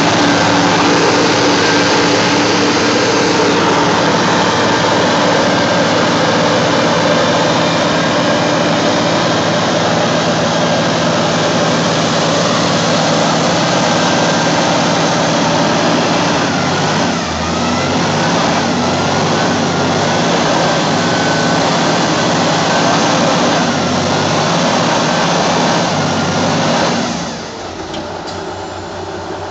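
Diesel engine of a three-axle all-terrain mobile crane running loud and steady while the crane sits stuck in deep mud ruts, its engine dropping to a quieter run near the end.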